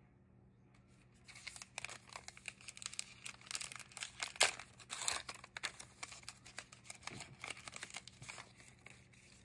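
Plastic wrapper of a 2022 Panini Diamond Kings trading-card pack being torn open and crinkled by hand: a dense run of crackles starting about a second in, loudest near the middle.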